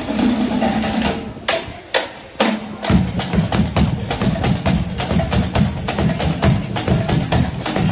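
Marching band percussion playing: a few sharp drum hits, then about three seconds in a fast, steady drum beat starts.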